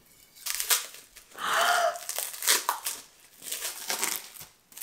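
Black plastic wrapping being cut and torn off a glass cider bottle, crinkling and tearing in several separate rustling bursts.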